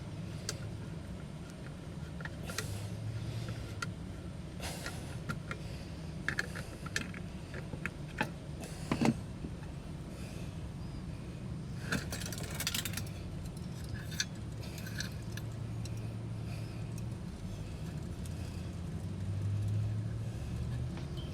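Small metal parts and hand tools clinking and rattling at irregular intervals, with a denser rattle a little past halfway, over a steady low hum.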